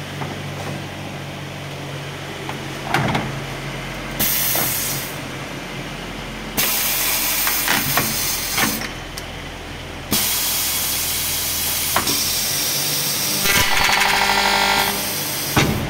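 PVC window corner-cleaning (deburring) machine running its cycle. A steady motor hum runs throughout, while pneumatic cylinders clunk and let out repeated bursts of air hiss. Near the end the stacked cutter spindle spins up and cuts the PVC profile with a buzzing rasp for about a second and a half.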